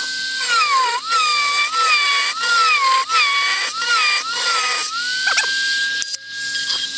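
Dremel rotary tool with a cutter bit running at high speed, its whine dragging down in pitch again and again as the bit bites into the workpiece and loads the motor. After about five seconds it settles back to a steady free-running whine.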